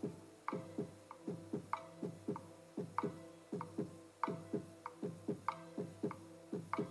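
Soft instrumental background music: single picked notes in a gentle, even pattern of about three a second, each ringing briefly and dying away, played back through a room's speakers.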